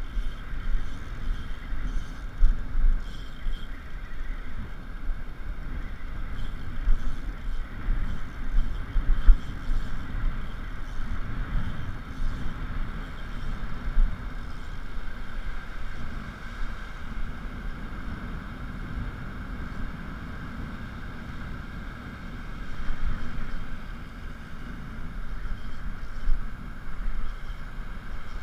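Wind gusting on the microphone, uneven low buffeting over a steady hiss of surf.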